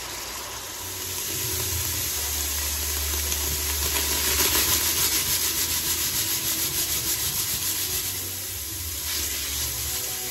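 Ground beef sizzling and steaming in a hot stainless steel pot, with a wooden spoon stirring and scraping through the meat in quick strokes, about four a second, for several seconds in the middle.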